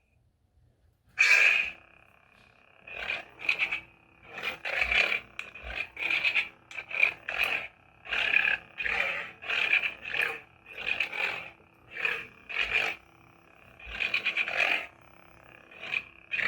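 Lightsaber sound effects from a Nano Biscotte V4 soundboard through a small 28 mm speaker: the blade ignites about a second in, then a steady hum with swing sounds swelling and fading about once a second as the hilt is moved.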